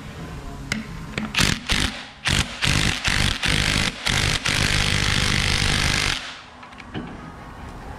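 Impact wrench driving the screw of a ball joint press to push a U-joint cup out of a driveshaft yoke. It starts with a few short bursts about a second and a half in, then one steady run of nearly two seconds that stops suddenly with about two seconds to go.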